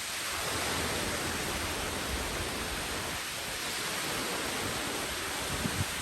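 Surf breaking and washing up the beach: a broad rush of water noise that swells and holds, then starts to ease near the end, with a couple of brief low bumps just before it fades.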